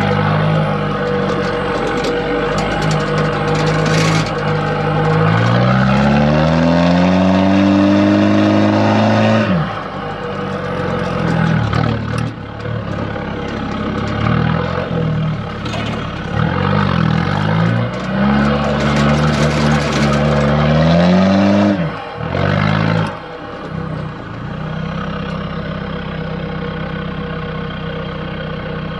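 2000 Holden TF Rodeo's 2.8-litre turbo diesel four-cylinder, breathing through a freshly fabricated twin 3-inch dump exhaust, driven hard with its note climbing in pitch and then dropping off sharply about nine seconds in. It climbs again and drops off twice more around twenty-two seconds in, then runs steadily at a lower pitch.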